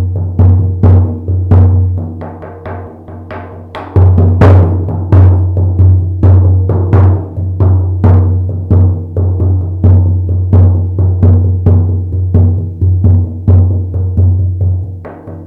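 50 cm shaman frame drum beaten in a steady rhythm of two to three strokes a second, each stroke ringing into a deep sustained boom. The strokes soften for a couple of seconds, come back hard about four seconds in, and grow softer again near the end.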